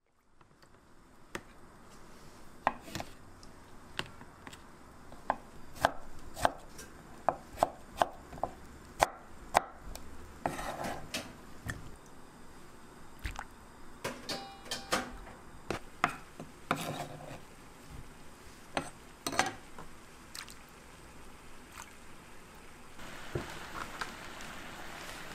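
A knife chopping pickled dongchimi radish on a wooden cutting board: sharp, irregular chops, a few a second at their busiest. Near the end a steady hiss of water at a rolling boil takes over.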